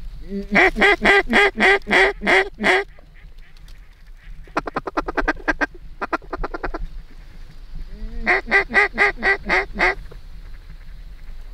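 Duck quacking: a string of about ten loud quacks, then a quicker, fainter run of short chattering clucks about four seconds in, then about seven more quacks near the end.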